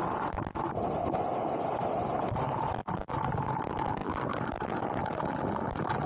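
Waterfall water rushing in a steady, even roar.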